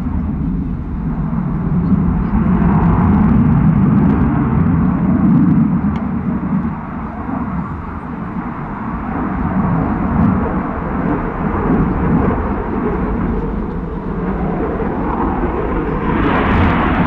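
Jet noise from a Eurofighter Typhoon's two EJ200 turbofans in a display flight: a deep, loud rumble that eases a little around the middle and grows louder and brighter near the end.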